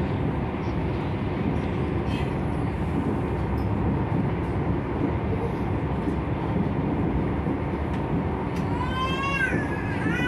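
Passenger train running at speed, a steady rumble heard from inside the carriage. A high, wavering pitched sound joins in during the last couple of seconds.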